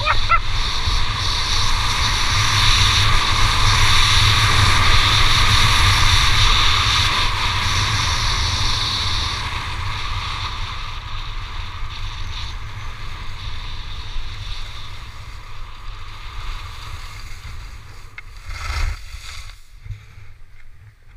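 Wind buffeting the microphone of a body-mounted action camera, with the hiss of sliding over groomed snow, during a downhill run; it grows quieter through the second half.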